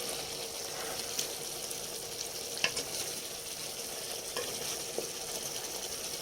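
Fried fish pieces sizzling steadily in a hot pan, with a few light clicks about one, two and a half and five seconds in.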